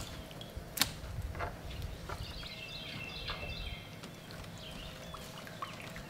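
Fillet knife clicking and scraping against a fish-cleaning table as the red meat is trimmed from a striped bass fillet, with one sharp click about a second in. Birds chirp in the background over a low rumble.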